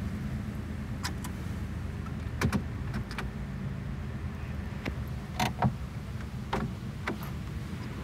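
Car engine running at low speed, heard from inside the cabin as a steady low hum. Scattered sharp clicks and knocks are heard about eight times.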